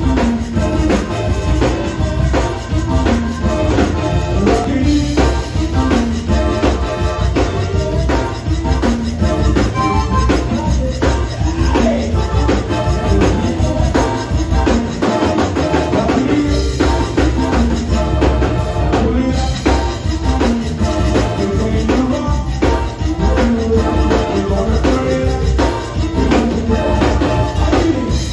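Live zydeco band playing: piano accordion carrying the tune over drum kit, electric bass, keyboard and guitar, with a rubboard scraped in a steady rhythm.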